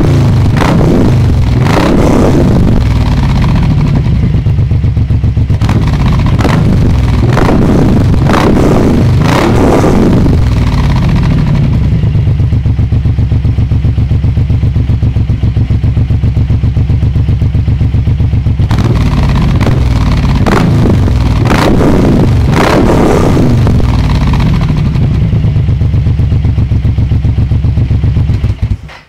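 Suzuki M109R's 1783 cc V-twin through a de-baffled exhaust, picked up by a phone held at the tailpipe: a run of quick throttle blips, a steady idle, a second run of blips, then idle again. The sound cuts off abruptly at the very end.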